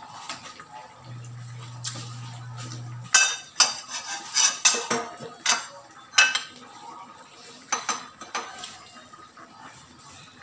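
Metal spoon and small stainless bowl clinking and clattering: a quick run of sharp clinks and knocks, busiest from about three to seven seconds in.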